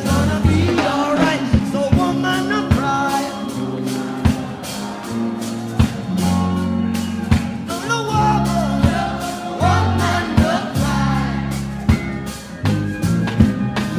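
Music with singing: a sung melody with backing voices over bass and a steady drum beat.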